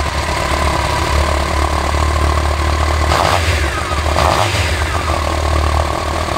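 Honda CBR1100XX Super Blackbird's inline-four engine idling through its twin mufflers, blipped twice: about three seconds in and again just after four seconds, each rev rising and then falling back to idle.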